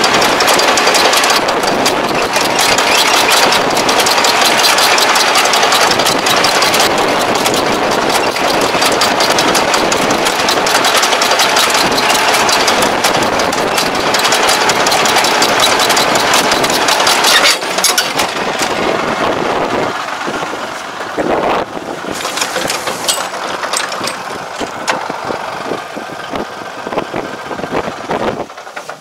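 Yanmar crawler tractor running under load while pulling a soil-fumigant injector implement through tilled soil: steady engine noise mixed with dense clattering and rattling from the rubber track and the implement. The sound drops in level about 17 seconds in and is quieter and more uneven after that.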